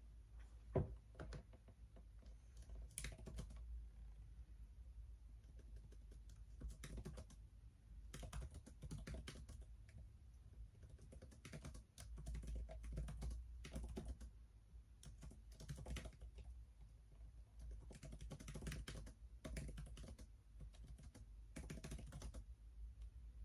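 Typing on an HP Chromebook laptop keyboard: spells of rapid key clicks with short pauses between them, and one sharper click about a second in.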